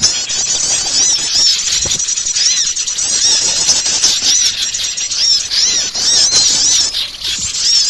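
A dense chorus of many small birds chirping and twittering over one another without a break, in high, quick, arched notes. It is a bird-lure (pikat) recording of a noisy flock of small birds, used to draw small birds in.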